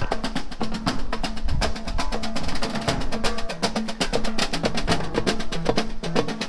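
A small group of drummers playing as they walk, with hand drums and a large mallet-struck drum, beating out a fast, steady rhythm of drum strikes.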